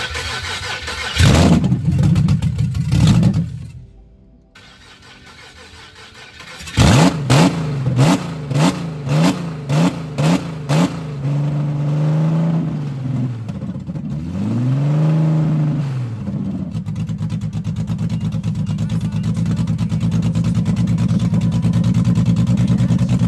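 2012 Infiniti G37's swapped-in VQ37VHR V6, running with no exhaust fitted, is cranked by its starter on a test start. After a first short try it catches on the second and runs unevenly in surges about twice a second. It is revved up and down twice and then settles into a steady idle, the freshly installed engine running.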